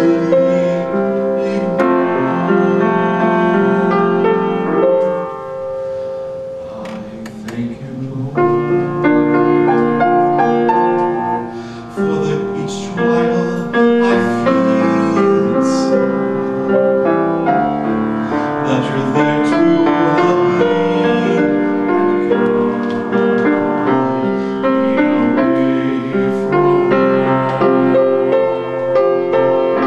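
A man singing a song while accompanying himself on a grand piano. About five seconds in, the music drops to a softer stretch for a few seconds before the full piano and voice return.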